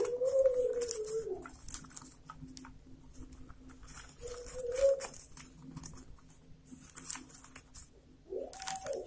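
Rolled newspaper-tube stakes rustling and clicking as hands bend them and tuck them behind neighbouring stakes to weave a basket border. Three brief low tonal sounds, like coos, come at the start, midway and near the end.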